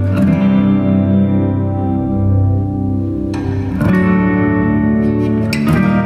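Background music led by an effects-laden guitar: sustained, ringing chords that change a few times.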